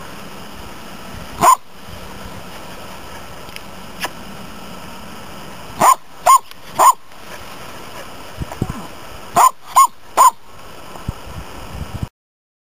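A dog barking in short bursts: a single bark, then two quick runs of three barks each. The sound cuts off abruptly just before the end.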